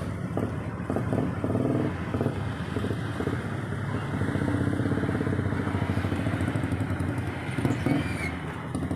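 A motorcycle-type engine running steadily, with some clatter.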